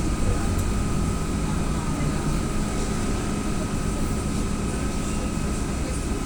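AKSM-321 trolleybus running, heard from inside the passenger cabin: a steady low rumble with a thin, steady whine above it.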